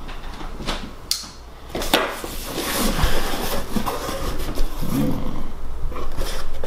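Cardboard shipping box being opened and handled: cardboard rustling and scraping, with a few sharp knocks and clicks as the outer box is worked loose and pulled off the inner box.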